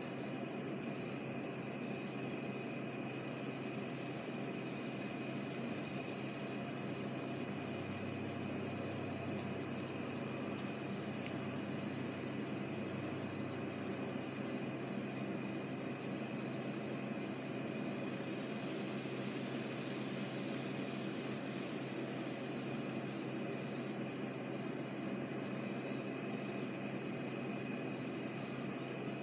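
Night insects, crickets among them, chirping outdoors: one high chirp repeating about twice a second over a steady insect chorus, with a low steady rumble of background noise beneath.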